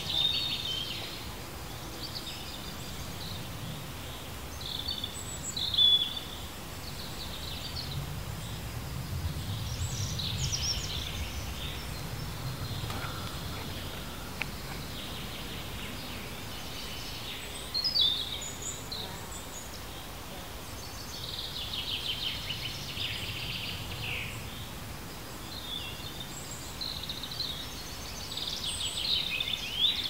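Outdoor woodland ambience: many short small-bird chirps and calls come and go, with a few louder ones, over a steady low rumble.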